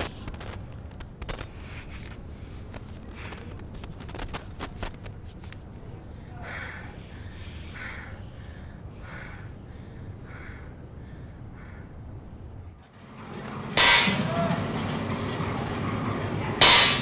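Two loud clanging strikes of a hammer on steel, about three seconds apart, near the end. Before them, a steady high-pitched whine with faint scattered clicks and soft pulses.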